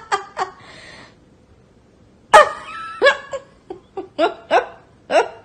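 A person laughing hard in short rhythmic bursts. The laughter breaks off about a second in, then starts again louder about two seconds later.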